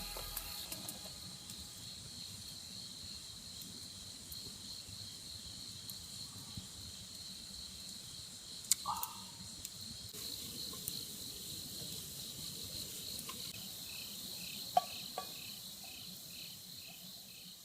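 Crickets chirping in a steady, high trill that pulses evenly, with a few faint clicks and one short chirp about nine seconds in.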